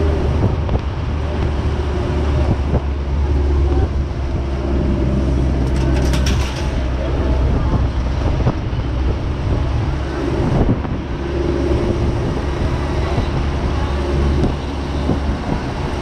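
Steady low rumble of a moving vehicle's engine and travel noise, with a brief rattle about six seconds in.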